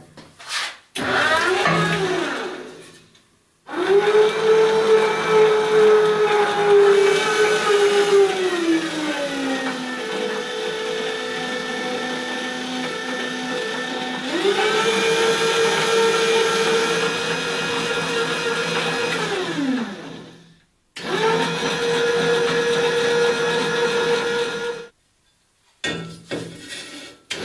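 Electric motor of a homemade chain-drive automatic vise whining as it drives the jaws, in several runs that start and stop abruptly. Twice the pitch slides down as the jaws clamp and the load builds, and it runs lower for a few seconds while the controller lowers the voltage under load to protect the motor.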